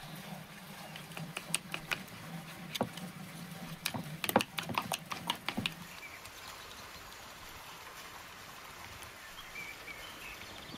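A run of sharp clicks and taps of eggshells being cracked and handled as yolks are separated over a bowl, loudest about four seconds in, over a low hum. After about six seconds this gives way to quiet outdoor ambience with a few faint bird chirps.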